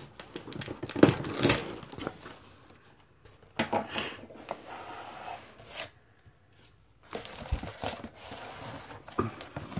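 Cardboard shipping box being opened by hand: packing tape tearing and the cardboard flaps scraping and rustling. It is loudest about a second in, with a quiet gap around six seconds.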